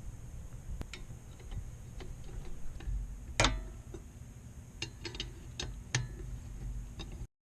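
Irregular light clicks and taps over a low steady hum, cutting off abruptly near the end.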